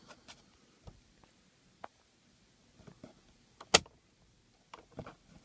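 Small plastic clicks and taps as fingers work the overhead console's map light lens, with one sharp snap about three and a half seconds in as the release tab lets go.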